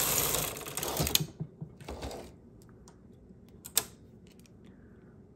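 Singer 328 Memo-matic knitting machine carriage sliding across the metal needle bed to knit a row, ending about a second in with a sharp click. After it, a few light metallic clicks, one louder near the middle, come from a transfer tool working the needles.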